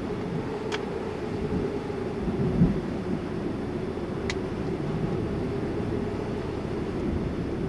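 Storm wind buffeting the microphone, a steady low rumble, with a brief low thump about two and a half seconds in and two faint sharp clicks.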